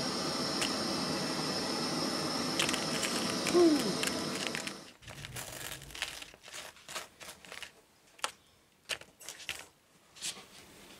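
Gas camp-stove burner hissing steadily under a wire stovetop toaster, with light clicks and a short squeak as toast is lifted off the rack. About five seconds in the hiss stops, and a knife scrapes butter onto dry toast in a string of short, scratchy strokes.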